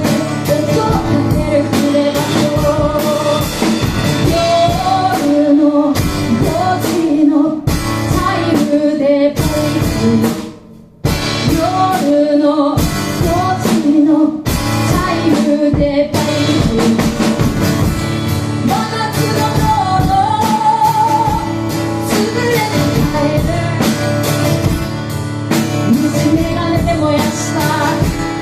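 Live rock song: a woman singing over guitar and a drum kit. The band drops out briefly, a little after ten seconds in, then comes back in.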